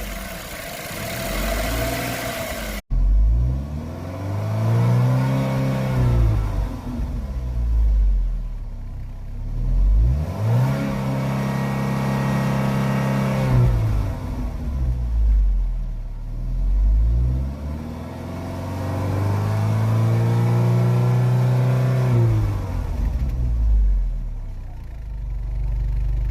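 Chevrolet Equinox engine revved up and let fall again and again, some revs held for a couple of seconds before dropping back. A sudden break about three seconds in.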